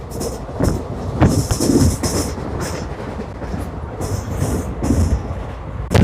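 Passenger train running, a steady rumble with wheels knocking over rail joints. The sharpest knocks come about a second in and again at the end.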